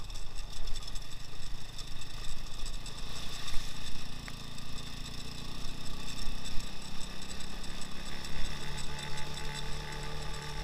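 Engine of a two-wheel-drive all-terrain motorcycle running steadily while riding along a dirt road, its note settling into a steadier tone near the end.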